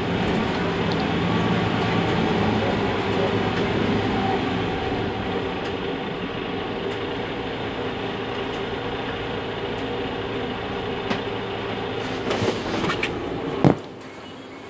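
Mercedes-Benz Citaro G C2 articulated bus idling at a stop: a steady engine hum with a low drone, easing off slightly partway through. Near the end a few clicks and then one sharp knock, after which the sound is quieter.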